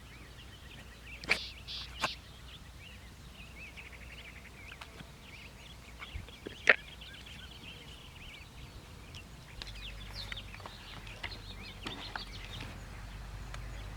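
Small birds chirping in quick, high twitters, broken by a few sharp clicks, the loudest about a second in and near the middle.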